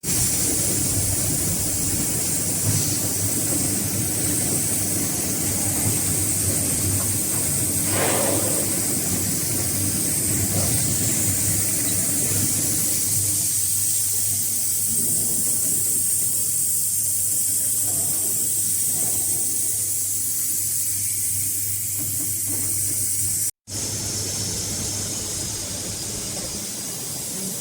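A 12 kW CNC fiber laser cutting machine running through sheet metal: a steady hiss over a low, even hum. The sound drops out for an instant about two-thirds of the way through.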